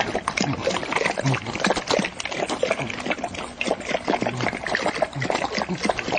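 Dog lapping liquid from a stainless steel bowl: fast, wet, continuous lapping with a steady rhythm.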